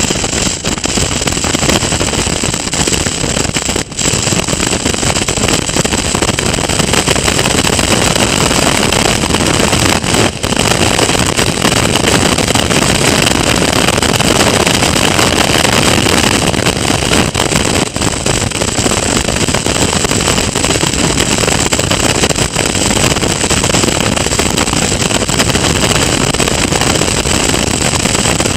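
Caterham Seven race car's four-cylinder engine running hard at racing speed, mixed with heavy wind rush on the open car's onboard camera microphone. A few brief dips in level break the steady loud noise.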